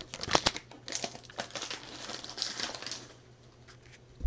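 Baseball trading cards and their pack wrapper being handled: crinkling and rustling with many small clicks for about three seconds, then fading out.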